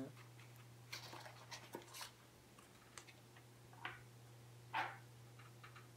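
Light handling noises of a small cardboard box and a tiny screwdriver being picked up: scattered soft taps, clicks and rustles, the loudest about five seconds in, over a faint low steady hum.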